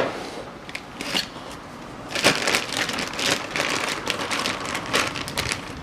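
Irregular crinkling and rustling with many light clicks, as of packaging being handled around a new wheel hub, starting about two seconds in.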